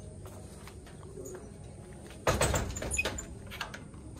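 A louvered door rattling and clattering as it is handled, with clicks from its metal latch, about two seconds in.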